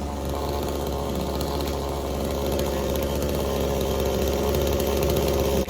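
Blue Max chainsaw running steadily at a fairly constant speed.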